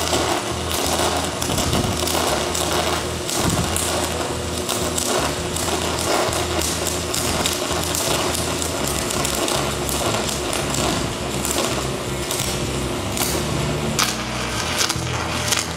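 Stick-welding arc of a giant 3/4-inch Comet F25 electrode burning at 1000 amps DC: a loud, steady crackle and hiss, thick with sharp pops, as the rod is dragged slowly along the plate.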